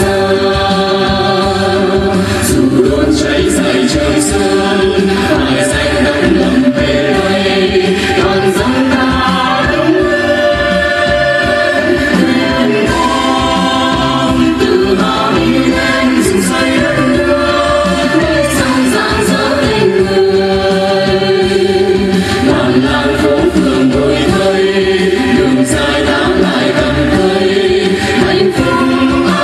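A Vietnamese song medley sung by a group of voices in chorus over instrumental accompaniment, continuous and at an even level.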